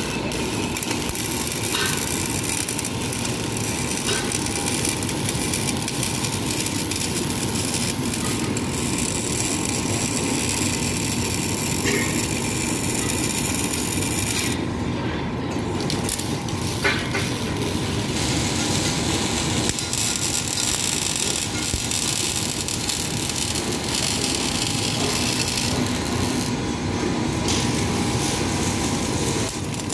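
Steady crackle and hiss of MIG (wire-feed) arc welding, with a steady hum underneath; the crackle drops out briefly about halfway through and again shortly before the end.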